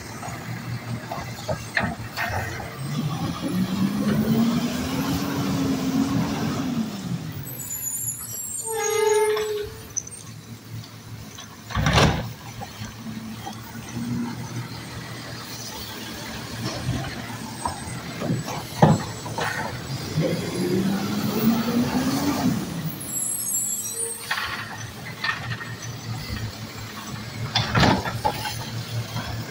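Automated side-loader garbage truck picking up two wheeled carts. Each time the engine revs up and back down to drive the arm's hydraulics, then comes a short burst of air hiss and a sharp bang from the cart being knocked and dumped.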